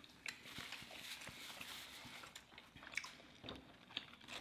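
Faint chewing and mouth sounds of people eating burritos, with scattered small clicks.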